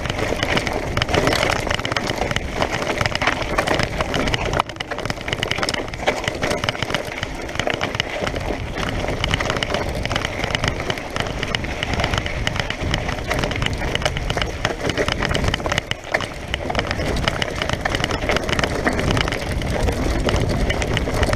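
Mountain bike descending fast over loose, rocky dirt: continuous crunching of the tyres on gravel and rattling of the bike over the bumps, with many small knocks throughout.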